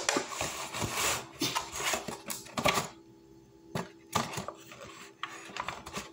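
Aluminum foil takeout pan being handled and its lid pulled off: crinkling foil and quick clicks, busiest in the first three seconds, then a few scattered clicks.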